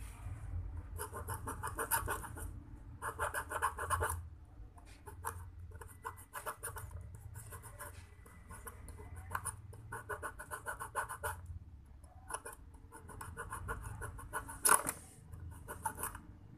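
Hand file rasping across a small metal piece clamped in pliers, in bursts of quick back-and-forth strokes, shaping a homemade replacement click pawl for a fishing reel. One sharp knock stands out near the end.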